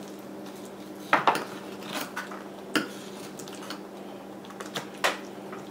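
Knife blade clicking and scraping against a metal sheet pan as a slab of spare ribs is cut apart between the bones: about five sharp, irregularly spaced clicks.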